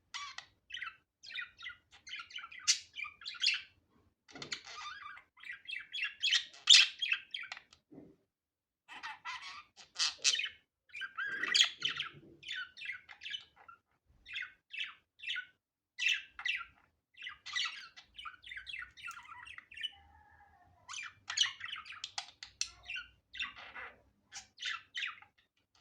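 Budgerigar chattering: rapid runs of high chirps, warbles and squawks, broken by a couple of brief pauses.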